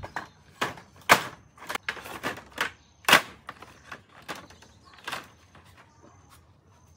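Wooden planks with metal-capped ends knocking and clattering against each other as they are lifted and shifted on a stack: a string of sharp knocks, loudest about a second in and again about three seconds in, thinning out after about five seconds.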